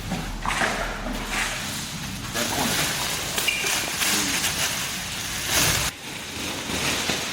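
Rustling and crinkling of packaging being handled and pulled off, irregular and noisy, cutting off abruptly about six seconds in.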